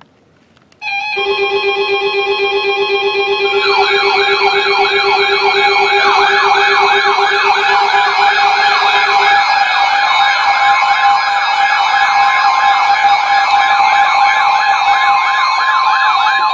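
Several emergency alert tones sounding at once, starting suddenly about a second in. Steady tones sound with a pulsing low tone that stops about nine seconds in, and warbling siren-like tones join a few seconds in.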